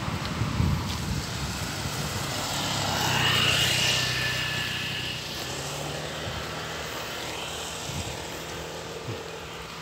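A passing engine, swelling to its loudest about three to four seconds in and then slowly fading, with a low steady hum underneath.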